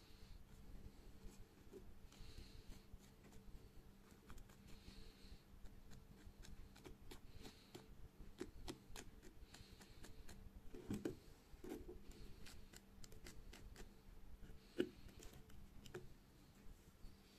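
Faint handling noise of fingers and a small metal tool working tissue paper on a small plastic action-camera body: scattered soft clicks and rustles, with one sharper tap about fifteen seconds in.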